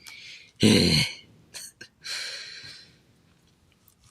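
A man breathing out audibly, with a short wordless vocal sound about half a second in and a longer breathy exhale about two seconds in, plus a couple of faint small clicks.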